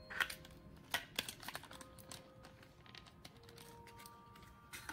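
Crisp crackles and clicks of a small clear plastic bag being handled and squeezed, a cluster in the first second and a half and another near the end, over soft background music.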